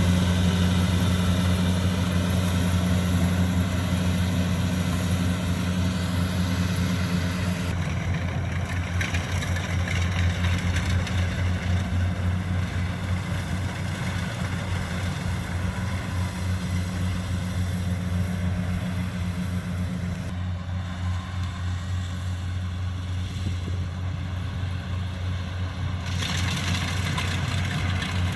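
Diesel engine of a rice combine harvester or crawler tractor running steadily at an even speed, a deep constant drone. Its higher-pitched noise changes character a few times.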